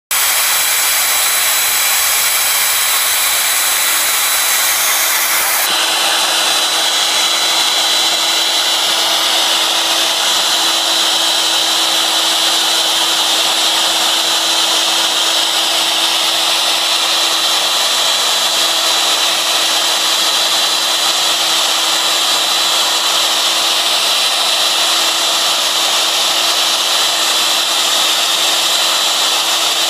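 CNC router spindle running at high speed while a 1/4 in 60-degree V-bit engraves lettering into cedar: a steady whine with the hiss of the bit cutting the wood. The sound shifts about six seconds in, losing some of its top hiss as the high whine grows stronger.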